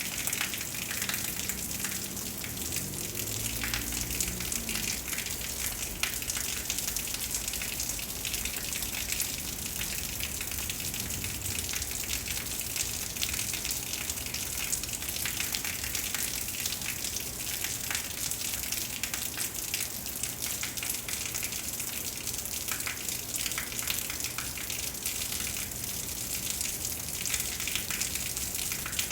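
Heavy thunderstorm rain falling steadily, a dense hiss with fine pattering crackles. A low rumble rises briefly about three to five seconds in.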